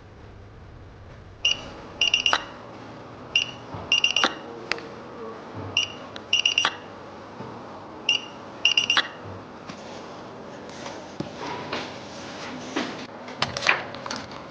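Electronic beeps in a repeating pattern: a single short beep followed by a quick double or triple beep, the set coming round about every two seconds, four times. After that come irregular clicks and scraping of small tools.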